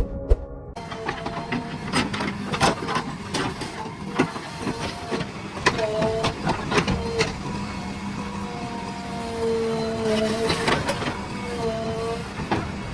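Earthmoving machine at work: a running engine and hydraulics under many irregular metallic clanks and knocks, with a wavering whine that rises and falls several times.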